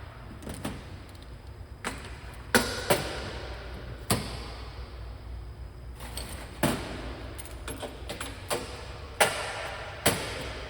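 Metal parts of a valve positioner and its mounting hardware knocking and clanking while being fitted onto a valve actuator: about nine irregular sharp knocks, some with a short ring.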